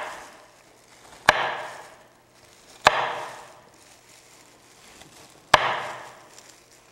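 Knife chopping through hard raw carrots on a cutting board: three sharp chops at uneven spacing, each with a short fading tail.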